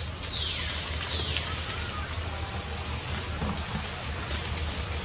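Outdoor ambience: a steady low rumble and hiss, with two short falling whistle-like calls in the first second and a half.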